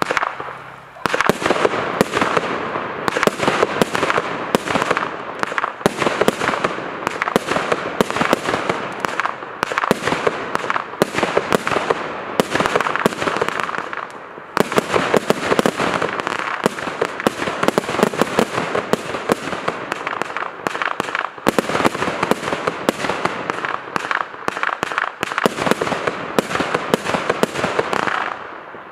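Jorge Fireworks Formula 1 170-shot compound barrage cake firing rapid, near-continuous volleys of shots and bursts, with brief lulls about a second in, about fourteen seconds in and about twenty-one seconds in.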